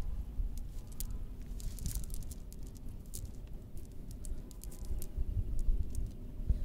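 A nylon cast net with lead sinkers being handled and picked through on the ground: scattered rustling crackles and small sharp clicks, most of them in the first five seconds, over a low rumble.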